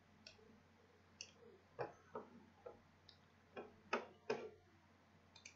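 Computer mouse clicks: about nine faint, short clicks at irregular spacing, as connectors are drawn in traffic-simulation software.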